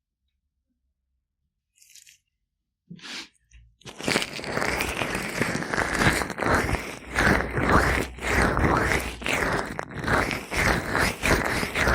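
Gloved hands rubbing oil over an ear microphone: close rubbing full of rapid crackles, starting about four seconds in after near silence and a couple of faint touches.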